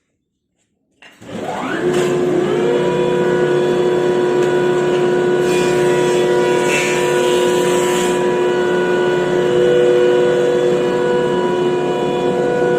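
Electric wood planer's motor switching on, its whine rising over about a second to full speed and then running steadily. A rougher, hissier stretch in the middle, lasting a couple of seconds, fits the cutter taking a pass over a short board.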